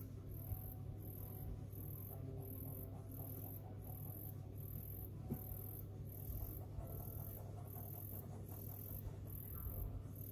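A very high chirp repeating evenly about twice a second, insect-like, over a steady low hum and faint background music.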